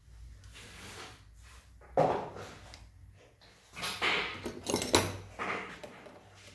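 Metal tools and engine parts clinking and knocking as they are handled and fitted at an open motorcycle engine case: one sharp knock about two seconds in, then a quick run of clinks and clatter a couple of seconds later.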